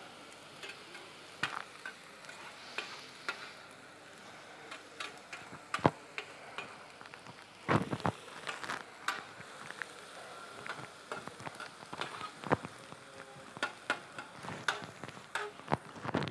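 Onions frying in oil in a steel paella pan with a steady sizzle, while a metal skimmer stirs them, knocking and scraping against the pan at irregular intervals. The loudest knocks come about six and eight seconds in.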